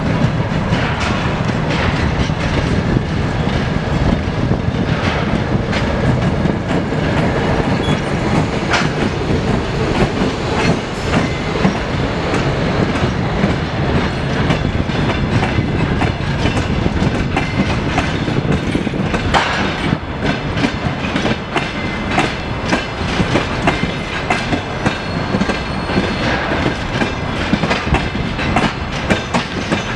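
A ТЭМ18ДМ diesel shunting locomotive runs past hauling a passenger train, its engine rumbling in the opening seconds. The passenger coaches then roll by, their wheels clacking over the rail joints in a steady stream of knocks.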